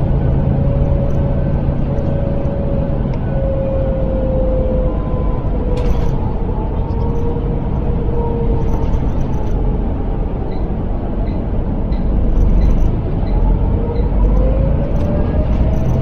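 Volvo B7L bus's rear-mounted six-cylinder diesel and driveline heard from inside the saloon while under way: a steady low rumble with a whine that slowly falls in pitch and rises again near the end. A single click comes about halfway through, and a light ticking runs about twice a second for a few seconds after it.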